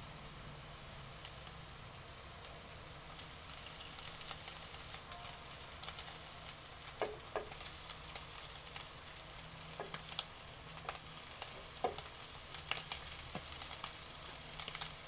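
Shredded chicken with sautéed garlic and onion sizzling in hot oil in a stainless steel pan, with scattered crackles and pops. The sizzle gets louder about three seconds in.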